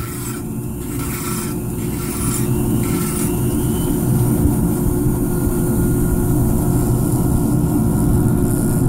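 Rotary power carver running steadily with a tungsten carbide bur made for aluminum. Over the first three seconds or so the bur cuts into hard western yew in short, repeated strokes, and after that the motor's sound holds steady.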